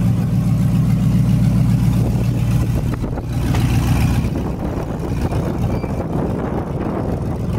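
Burnout pickup truck's engine idling as the truck rolls down the ramps off a car trailer; its steady low note turns choppier and less even about four seconds in.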